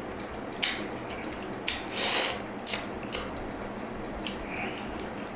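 Close-up mukbang eating sounds of dragon fruit with milk: a string of short, sharp wet smacks and clicks, with a longer, louder noisy one about two seconds in.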